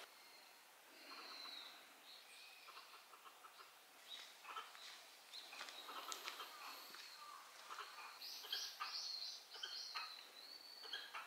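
Several small birds calling: thin, high whistled notes and short chirps, with a busier run of quick repeated chirps about eight seconds in.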